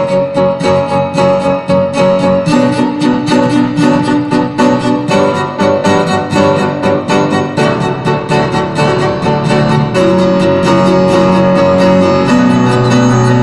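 A piano, cello and violin trio playing live: quick repeated piano notes under held string lines, easing into smoother sustained notes about ten seconds in.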